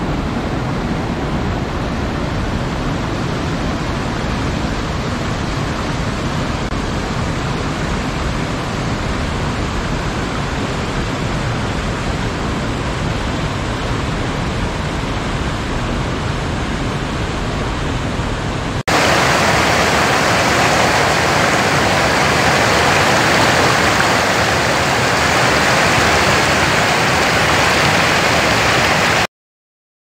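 Steady rush of fast water tumbling over rocks in a mountain stream. A little past halfway it cuts abruptly to a louder, brighter rush of falling water, which stops suddenly shortly before the end.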